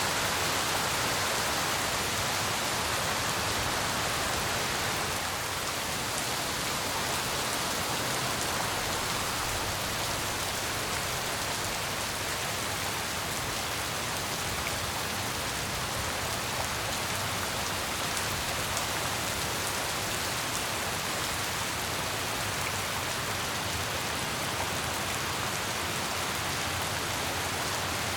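Steady heavy rain falling on surfaces, a dense, even hiss with fine pattering of individual drops.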